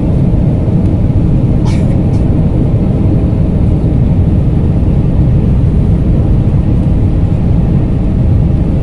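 Steady loud roar of a jet airliner heard inside the cabin: engine and airflow noise. One brief high sound about two seconds in.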